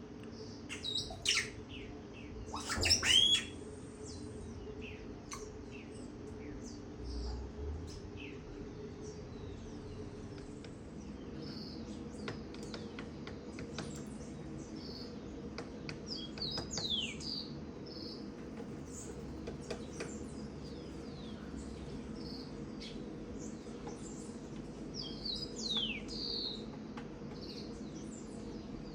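Songbirds chirping and calling outdoors: many short high chirps and quick down-sweeping whistled calls, the loudest a couple of sharp calls in the first few seconds, over a steady low hum.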